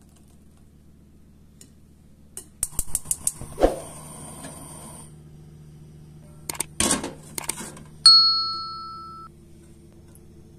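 Cookware and utensils clattering in a kitchen: two short runs of sharp clicks and knocks, then one metallic clang about eight seconds in that rings and fades over about a second, like a pan set down on a gas hob's grate.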